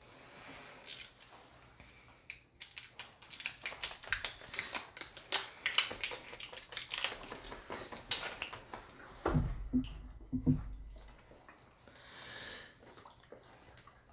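Plastic shrink-wrap seal crinkling and crackling as it is picked and peeled off the neck of a small hot sauce bottle, followed about two-thirds through by a few dull low knocks from handling.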